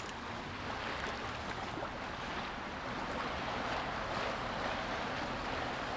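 Shallow river water lapping and sloshing around a wading angler's legs: a steady, even rush with no distinct splashes.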